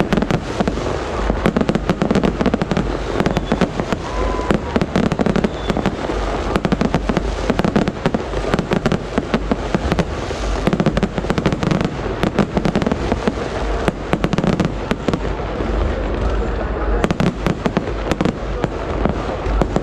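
Aerial fireworks display going off nonstop: many sharp bangs and crackles a second, overlapping, over a low booming rumble.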